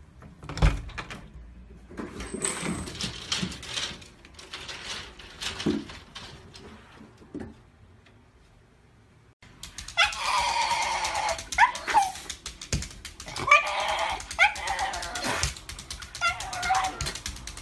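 A Shiba Inu making a run of loud, high, wavering cries over the last eight seconds. Before that, a sharp click near the start and a quieter stretch.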